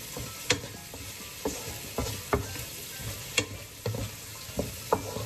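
Wooden spatula stir-frying sliced carrots in a nonstick wok over a steady sizzle, knocking and scraping against the pan about eight times at an uneven pace.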